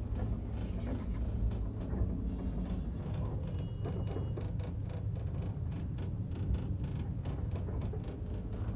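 Low steady rumble of a vehicle heard inside an ambulance's patient compartment, with light knocks and rattles throughout.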